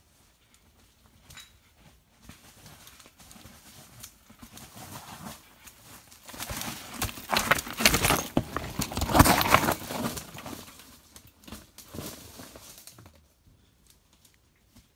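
Mountain bike passing over a loose, rocky trail: tyres crunching and rattling over stones and the bike clattering. It builds to a loud peak of quick knocks about halfway through, then fades away.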